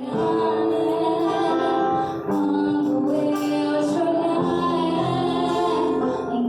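A song with a woman singing held, slow notes over instrumental accompaniment.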